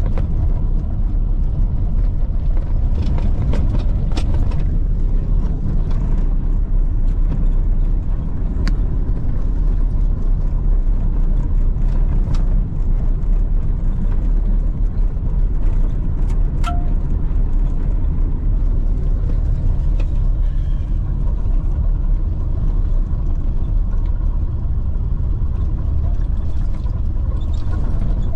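Steady low road rumble of a car driving, heard from inside the cabin, with a few sharp clicks.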